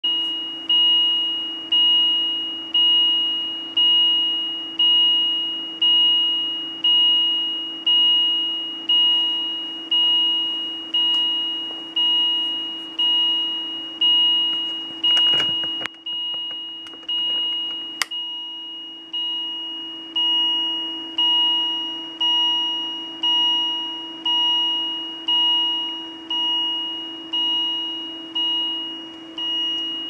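Philips IntelliVue patient monitor sounding its asystole alarm: a high-pitched beep repeating about once a second, each beep fading out, over a steady low hum. It signals a flat ECG with a heart rate of zero. There are a couple of brief clicks midway.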